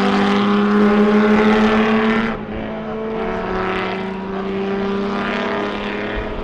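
Porsche 906 racing car engine running at a steady high pitch on track. About two seconds in, it suddenly becomes quieter and duller, then carries on steadily.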